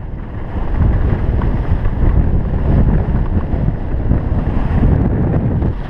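Wind buffeting the microphone of a skier moving downhill at speed: a loud, steady low rumble.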